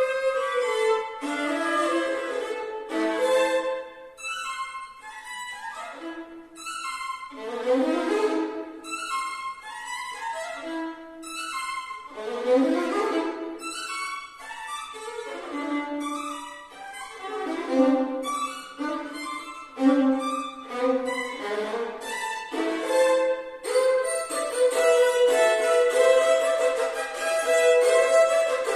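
Solo violin playing: short phrases of bowed notes and chords broken by brief pauses, giving way near the end to a steady passage of several held notes sounding together.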